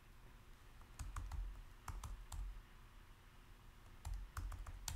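Faint computer keyboard keystrokes in three short bursts: about a second in, around two seconds in, and again near the end.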